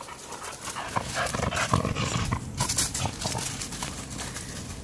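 A dog panting, with many short crunching steps on loose gravel.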